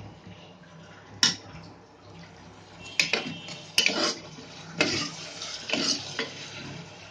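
Metal ladle clinking and scraping against the inside of an aluminium pressure cooker as onions, green chillies and ginger-garlic paste are stirred together. There is one clink about a second in, then a run of clinks and scrapes in the middle.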